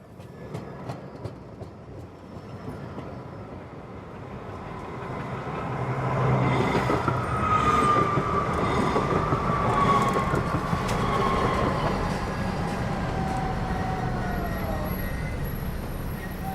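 Electric tram pulling into a station: its running noise grows louder over the first six seconds, with a few sharp clicks early on. A high whine then falls slowly in pitch as the tram slows.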